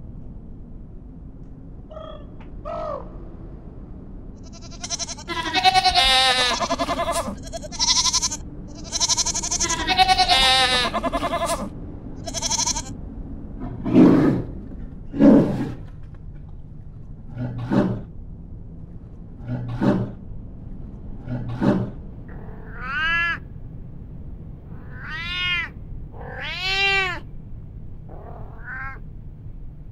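Three animals in turn: deer giving high, quavering bleating calls, then a polar bear's deep grunts, five of them about two seconds apart, then a domestic cat meowing several times, each meow rising and falling in pitch.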